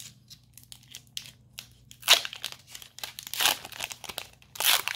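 The foil wrapper of a Pokémon TCG Evolutions booster pack being torn open and pulled apart. It crinkles softly at first, then in louder bursts about two seconds in, around three and a half seconds, and near the end.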